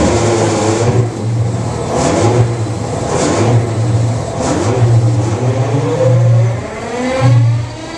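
A locomotive's 16-cylinder diesel engine starting up: a heavy low beat that pulses on and off, with whining tones that swing up and down, then climb steadily near the end as the engine gains speed.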